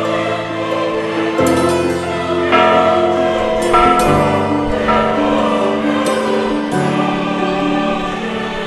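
Background music with held, choir-like voices, its chords changing every second or two.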